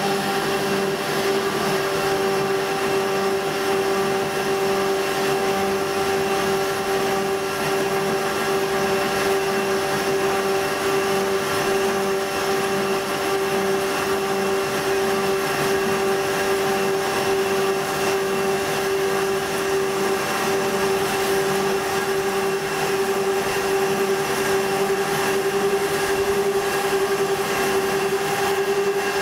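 Asada Beaver 4 Eco portable band saw running steadily while its blade cuts through a 4-inch pipe: an even mechanical hum with one strong steady tone.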